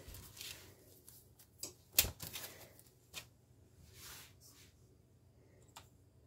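Hands handling things on a kitchen counter: soft rustles and scattered light taps, with one sharp knock about two seconds in.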